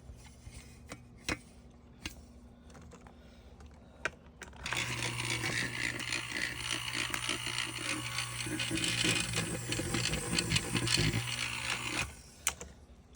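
A few handling clicks, then about five seconds in a 60 CFM exhaust fan's motor switches on and runs with a steady low hum and a busy rattling whir, cutting off about seven seconds later.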